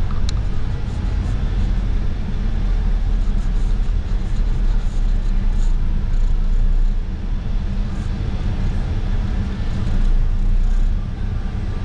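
City bus on the move: a steady low rumble of engine and road noise, with light rattles and clicks now and then.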